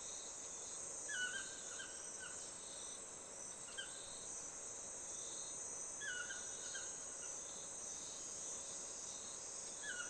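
Black-mandibled toucan calling: a yelping phrase of a rising note followed by two or three shorter notes, repeated four times about every two to three seconds. A steady high hiss of insects runs underneath.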